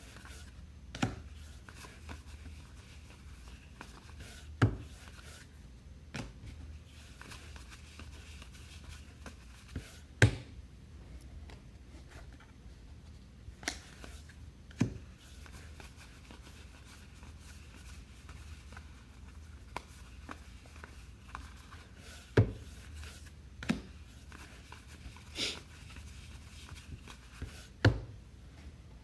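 Trading cards handled and set down on a table: sharp taps at irregular intervals of a few seconds, with faint rubbing and shuffling between them.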